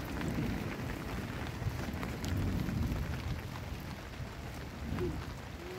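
Steady rain falling, with scattered fine drop ticks over a low rumble.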